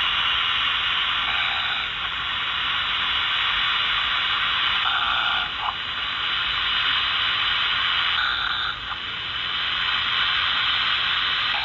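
Radio receiver static: a steady hiss that sits in the upper-middle range, its tone shifting abruptly a few times.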